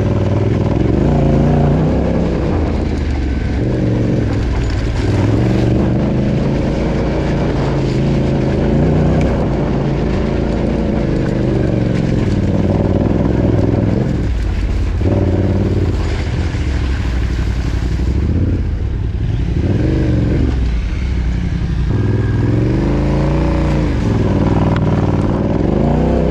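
Yamaha Ténéré 700's parallel-twin engine being ridden off-road, revving up and down with the throttle, its pitch rising and falling again and again.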